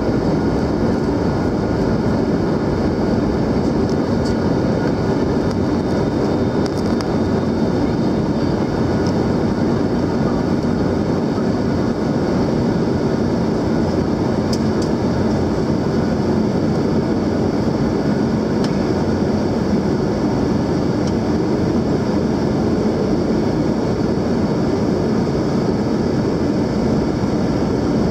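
Steady cabin noise of an Airbus A321neo on approach, heard from inside over the wing: a constant low rush of engine and airflow with a faint steady whine above it.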